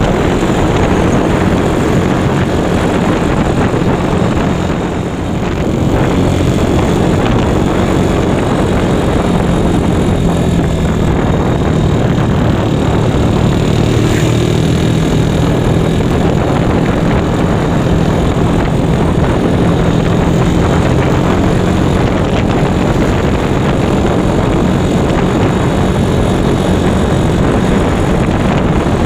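Honda Megapro single-cylinder four-stroke engine fitted in a Yamaha Mio scooter, running steadily while riding, easing off briefly about five seconds in.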